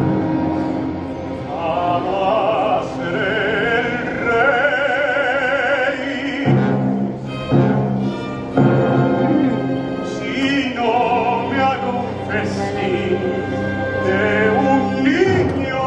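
Operatic singing with vibrato accompanied by a youth symphony orchestra, which holds sustained chords under the voices. The singing breaks off briefly about seven to eight seconds in, then resumes.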